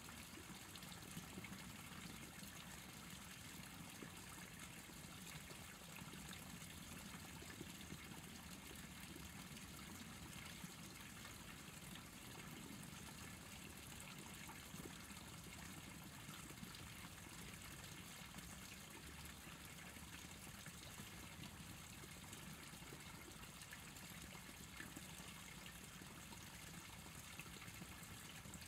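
Faint, steady ambience of an urban stream ravine: an even wash of trickling stream water with a low hum beneath it and a few faint ticks.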